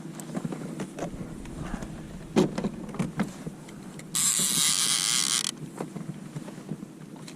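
Creaking and clicking from a pedal-drive fishing kayak, with a louder knock about two seconds in. A loud, high hiss lasts just over a second about four seconds in and starts and stops abruptly.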